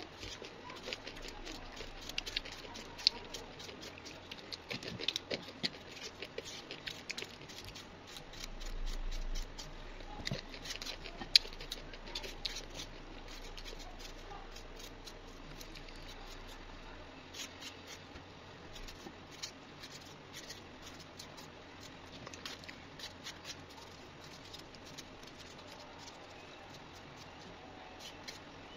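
Kitchen knife dicing cucumber and then tomato held in the hand over a glass bowl: a run of quiet, irregular crisp cuts and small clicks as the pieces drop in.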